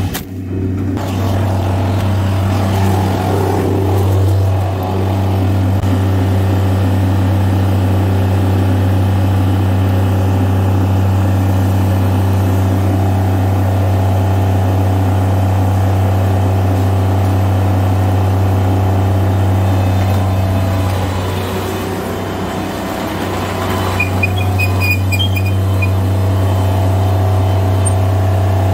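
Bobcat MT85 mini track loader's diesel engine running steadily at constant speed, easing off briefly about three-quarters of the way in before picking back up.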